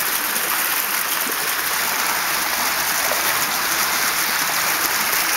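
A small waterfall spilling down a rock face into a shallow stream pool: a steady rush of water.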